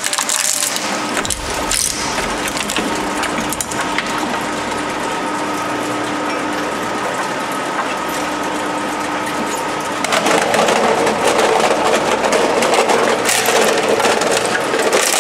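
Twin-shaft shredder running with a steady hum, crackling through a small plastic doll with a few sharp cracks near the start. About two-thirds of the way in, a louder, dense crunching begins as a PlayStation 2 console's plastic casing is crushed between the cutters.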